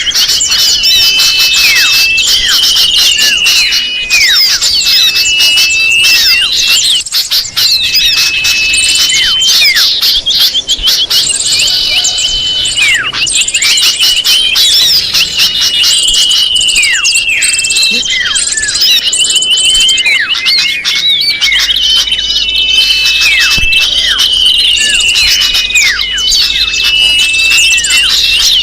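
Bird-lure recording of many small birds chirping and twittering all at once. The dense, overlapping calls go on without a break, with the same phrases recurring every few seconds.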